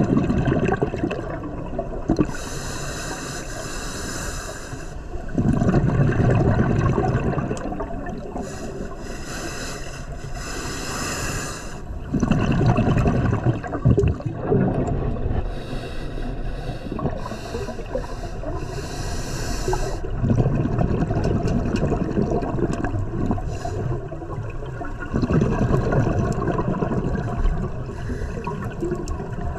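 Scuba diver breathing through a regulator underwater: a hiss with each inhalation, then a rumbling rush of exhaust bubbles with each exhalation, repeating slowly about every five to seven seconds.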